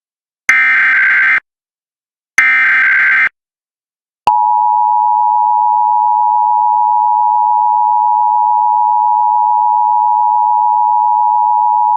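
Emergency Alert System data tones: two harsh, warbling bursts of SAME header code, each about a second long and about two seconds apart. About four seconds in the steady two-tone EAS attention signal starts and holds without a break. Together they open a new alert, a Required Weekly Test.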